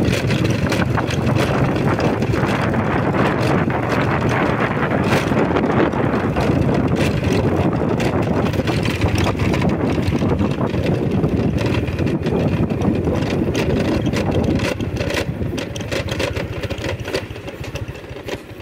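Motorbike engine running at a steady cruise with wind rushing over the microphone, growing quieter over the last few seconds as the ride eases off.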